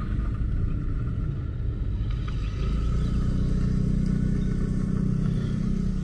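Car engine running and tyre rumble, heard from inside the moving car's cabin. It is a steady low drone, and the engine hum grows stronger about halfway through.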